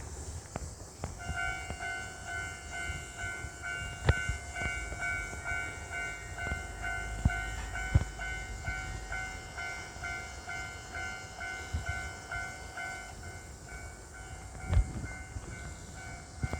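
Railway level-crossing warning bell ringing in a steady repeated ding about twice a second, starting about a second in. A few sharp knocks sound over it.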